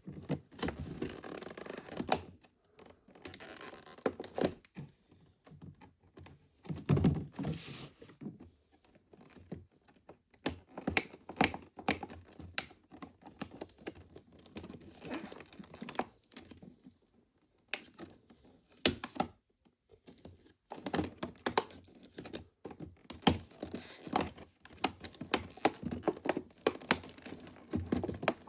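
Small plastic mini grocery toys being handled and taken out of a box: many irregular light clicks and knocks as the pieces hit each other and get set down, with a few stretches of rustling packaging.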